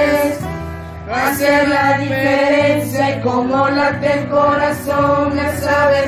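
A mixed group of young male and female voices singing together in harmony, with acoustic guitar accompaniment. The notes are held for about a second each.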